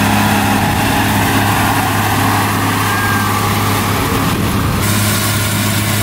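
John Deere 4440 tractor's six-cylinder diesel engine running steadily as it pulls a hay rake, a constant low drone.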